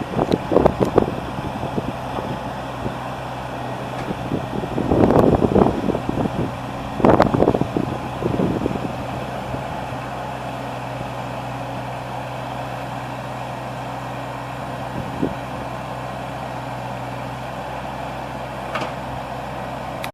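Bobcat E26 compact excavator's diesel engine running steadily. Several louder, noisy surges come in the first half, then it settles to an even hum.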